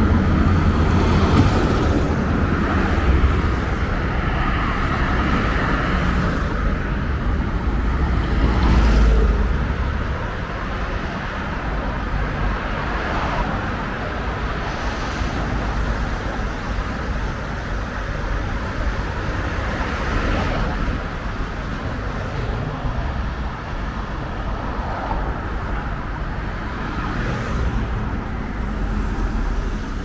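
Street traffic: cars driving by, with one vehicle's engine rumbling close for about the first nine seconds before it fades, leaving a steady wash of road noise.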